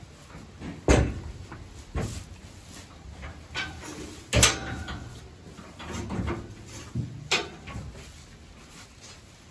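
Several sharp knocks and clatters of metal calf-pen gates and bars, the loudest about a second in and again near the middle.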